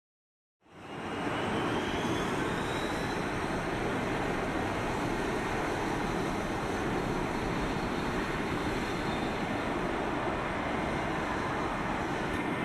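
F-35B fighter's F135 jet engine running at high power during a vertical take-off, a loud steady roar. It starts abruptly about half a second in, with a faint whine rising in pitch over the first couple of seconds.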